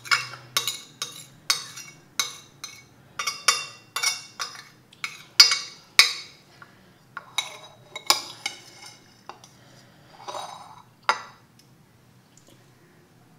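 Metal spoon scraping and clinking against a ceramic plate, scooping up the last of the noodles and sauce: a quick, irregular run of sharp scrapes and clinks that stops a couple of seconds before the end.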